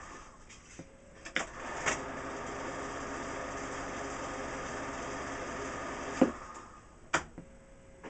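A machine hums steadily. It starts again with a couple of clicks about a second and a half in and stops with a knock around six seconds in. Another click follows near the end.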